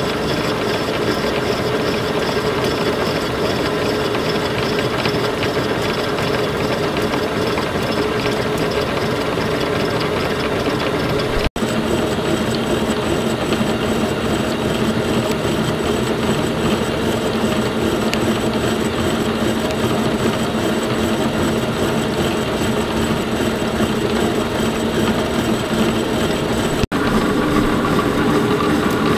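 Defiance horizontal boring mill running a 5-inch face mill at about 147 RPM, taking a steady facing cut across the high spots of the welds on an angle plate. The machine and cutting noise is continuous, breaking off for an instant twice.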